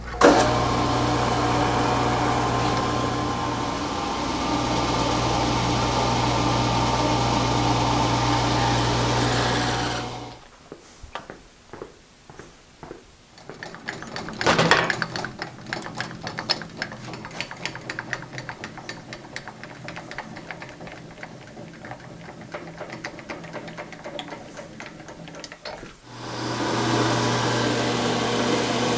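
Milling machine running as an end mill cuts a keyway slot in a steel shaft: a steady motor hum with several tones. About ten seconds in the hum drops away to a quieter stretch of fast, irregular ticking from the cut, with a brief louder burst around fifteen seconds, and the steady hum returns a few seconds before the end.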